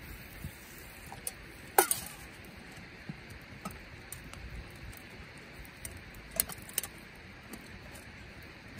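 Wood fire crackling and popping in a small camp brazier, with light clinks of metal camping cups being handled. The loudest is a sharp crack about two seconds in, with a couple more near the end.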